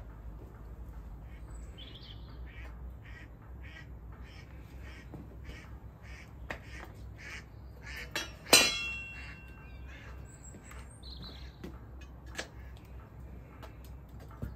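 Steel crucible tongs clank once, loudly and with a metallic ring, against the crucible or the furnace rim while the hot crucible is handled after the pour. Before the clank a bird calls in a quick even series, about three calls a second, over a low steady rumble.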